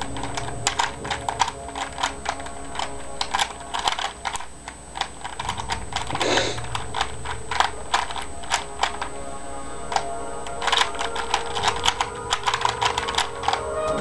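Rubik's cube being turned fast: runs of rapid plastic clicks and clacks from the layers turning, broken by short pauses, over a faint film soundtrack with music from a television.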